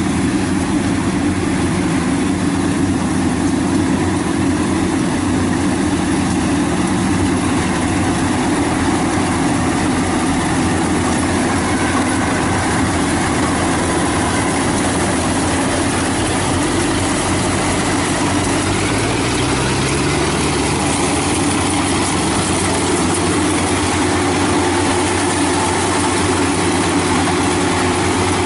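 YAMAH DC105 Plus combine harvester running steadily as it cuts and threshes lodged rice in soft, boggy ground. The engine note rises about two-thirds of the way through.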